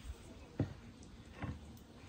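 Soft, muffled thuds and squishes of yeast dough being mixed by hand in a glass bowl, twice in quick succession.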